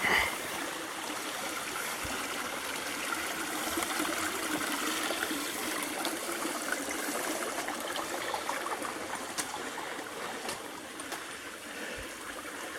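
Shallow creek water running steadily over rocks, with a few faint clicks in the second half.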